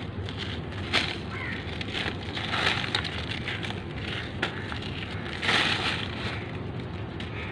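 Dry lumps of reused cement crumbled and broken by hand over a plastic sheet, making a gritty crunching crackle. There is a sharp snap about a second in, and louder crunching bursts near the middle and again later on.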